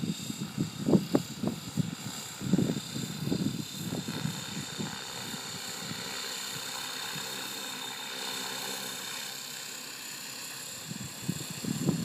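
Radio-controlled model helicopter flying overhead: a steady high-pitched motor whine over a low rotor hum. Wind buffets the microphone in irregular gusts for the first few seconds and again near the end.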